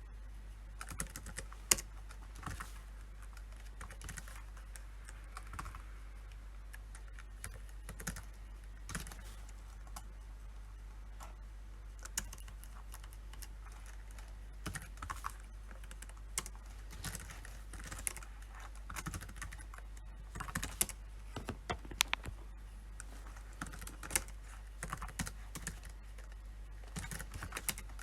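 Typing on a PC keyboard: irregular runs of key clicks with short pauses between them, and a few sharper, louder key strikes.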